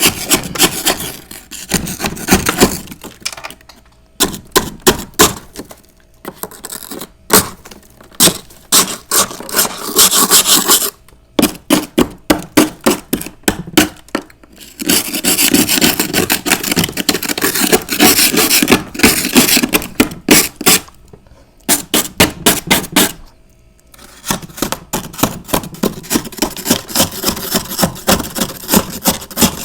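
Freezer frost being chewed and crunched close to the microphone: runs of dense, crackling crunches, broken every few seconds by short pauses.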